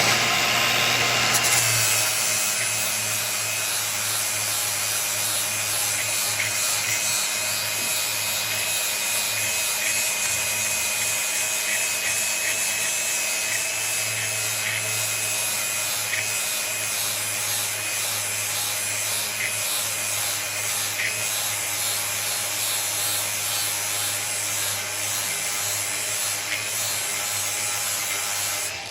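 Angle grinder with an abrasive pad running steadily as it grinds the steel cutting edge of a lawn mower blade, a constant motor whine over a grinding hiss. The whine settles slightly lower in the first couple of seconds, and the grinder shuts off at the very end.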